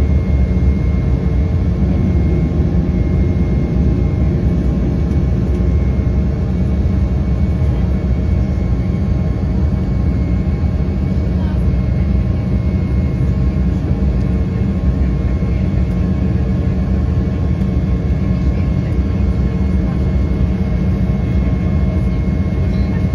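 Cabin noise of an Embraer E195 climbing just after takeoff: its CF34 turbofan engines run at climb power as a steady rumble, with a faint steady whine on top.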